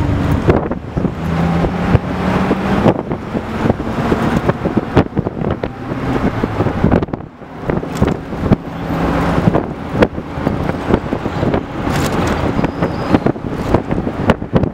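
Wind buffeting the microphone in a moving open-top Moskvich 401 car, in gusty rushes, with the car's engine running as a low steady hum underneath.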